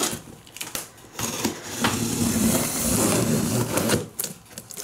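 A taped cardboard shipping box being handled and slit open along its top seam, heard as a few sharp clicks and then a crackly scraping of blade and hands on cardboard lasting about three seconds.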